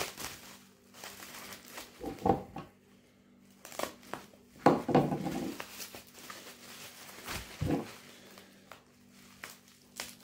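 Plastic bubble wrap crinkling and rustling in irregular bursts as it is pulled open by hand to unwrap a package.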